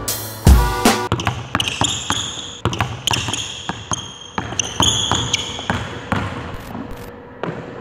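A basketball being dribbled on a hardwood gym floor in quick, uneven bounces, with one heavy bounce about half a second in. Sneakers squeak high on the court for a few seconds in the middle.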